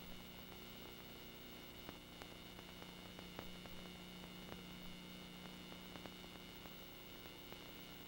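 Faint steady electrical hum with hiss and scattered clicks: the noise floor of an old film transfer whose soundtrack carries no program sound yet.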